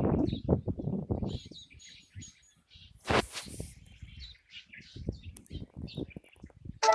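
Birds chirping, with a quick run of about five short high chirps about a second and a half in and scattered calls after. A low rumble fills the first second, and a brief loud hiss cuts in about three seconds in.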